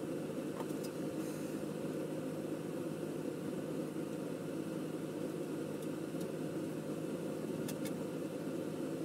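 Steady low machine hum running unchanged, with a few faint light clicks of small plastic model parts being handled.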